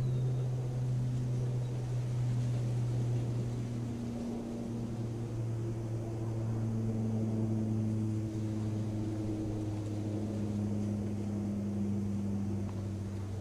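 An unexplained low drone carrying in the open air: a steady deep hum with fainter tones above it that slowly waver and shift in pitch, a groaning, alarm-like sound of the kind reported as mysterious 'sky sounds'.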